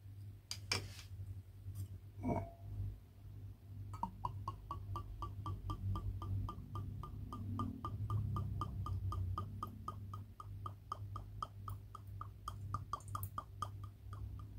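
Wine glugging out of a bottle neck into a stemmed glass: a steady run of quick gurgles, about five a second, from about four seconds in. A couple of light knocks come before the pour.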